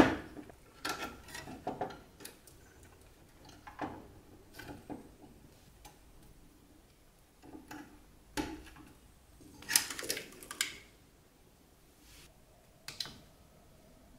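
Scattered clicks and plastic-and-metal knocks as a PCIe sound card is handled into its slot and a cable connector is pushed onto it. The loudest cluster of clicks comes about ten seconds in.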